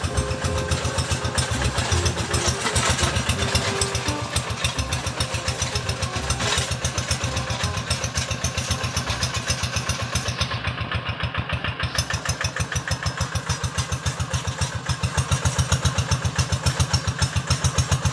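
Single-cylinder diesel engine of a two-wheel hand tractor chugging steadily with a fast even beat while pulling a trailer loaded with sacks. It gets louder near the end.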